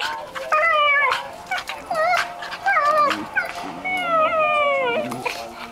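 Dog's play vocalising, the 'monkey chatter': a run of high, whining, yodel-like calls that slide down in pitch, four in a row, the last one longest, made while wrestling with another dog.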